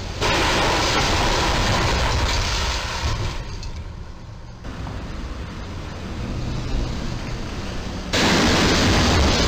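Street traffic noise as box trucks drive toward and under a low railroad bridge. A steady rushing noise, loud for the first few seconds, quieter in the middle, and loud again near the end.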